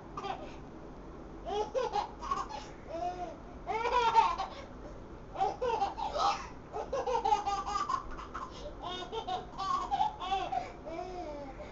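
A young child laughing hysterically in several high-pitched fits, with short pauses between the bouts.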